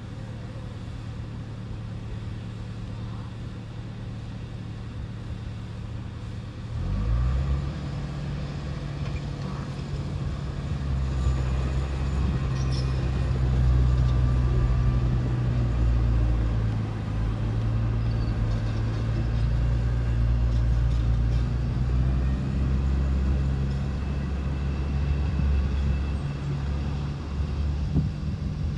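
Heavy diesel engine running steadily, then revving up sharply about seven seconds in and staying at the higher speed under load.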